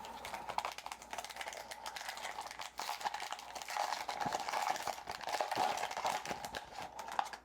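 Foil trading-card pack wrapper crinkling and crackling as it is handled and torn open, a dense run of small irregular crackles.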